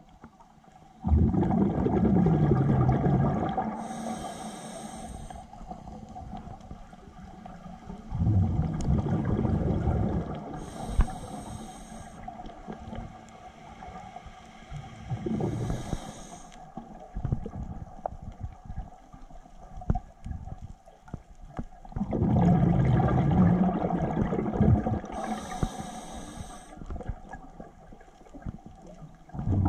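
Scuba diver breathing through a regulator underwater: three long, loud bubbling rushes of exhaled air, each a few seconds, with short high hisses of inhalation between them, and another exhalation starting at the very end.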